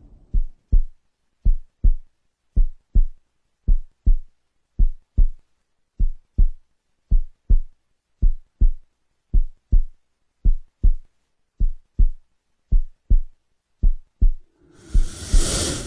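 Heartbeat sound effect: a slow, steady lub-dub, about one double thump a second, low and clean with silence between the beats. Near the end a rising whoosh swells over the last beats.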